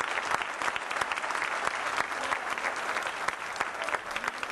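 Crowd applauding: many hands clapping in a dense, steady patter that eases slightly near the end.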